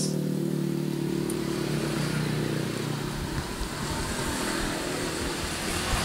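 Suzuki Smash single-cylinder four-stroke motorcycle engine running on a test after its cam chain was tightened, breathing through a makeshift scooter exhaust welded to fit. Its note is steady for about three seconds, then turns uneven.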